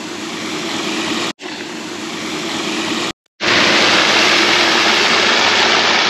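A floating lake fountain sprays water in a steady rush of splashing with a low pump hum. The sound breaks off briefly twice, the second time about three seconds in, and is louder after that.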